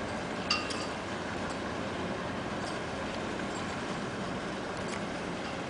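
Steady rumble of a Coast Guard ship's engines and thrusters as it manoeuvres in close to berth, with a short metallic clink about half a second in.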